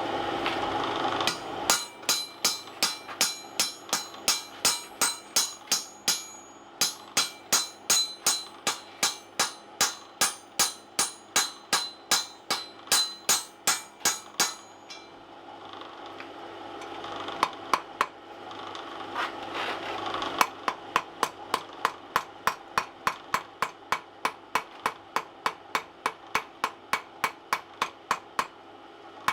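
Hand hammer striking hot steel held in a swage block groove to round the ball end of a punch: steady blows about two to three a second, each with a metallic ring. The blows pause around the middle with only a few scattered strikes, then resume steadily. A steady low hum runs underneath.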